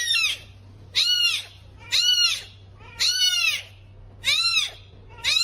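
A kitten meowing over and over, a short high-pitched meow that rises and falls, repeated about once a second.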